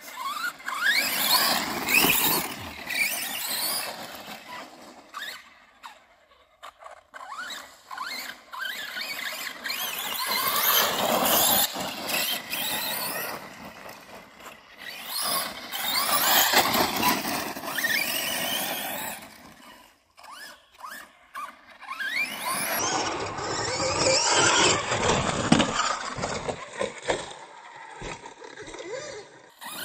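Arrma Kraton 4S RC truck's brushless motor and drivetrain whining, the pitch rising and falling as it accelerates hard and brakes. The whine comes in several runs of a few seconds each, with quieter gaps between.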